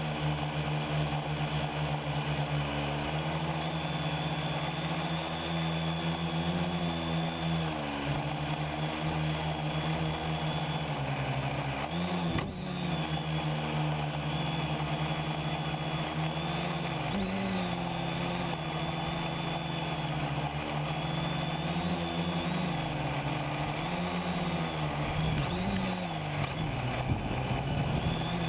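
Quadcopter's electric motors and propellers buzzing, heard close up from the camera on the craft, with a steady high whine above the drone. The pitch sags and rises again several times, with a brief dip about twelve seconds in.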